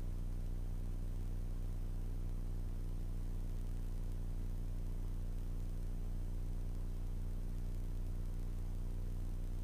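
Steady drone of a light plane's piston engine and propeller in cruise, heard through the intercom/radio feed as an even low hum with faint hiss.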